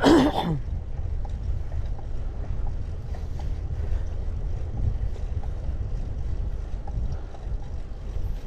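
Wind rumbling steadily on the microphone of a moving road bicycle. At the very start, one brief loud sound whose pitch rises and falls.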